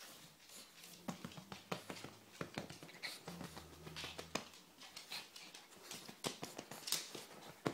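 Shih Tzu puppy playing and mouthing at a hand on a couch: a run of irregular small clicks and scuffling rustles.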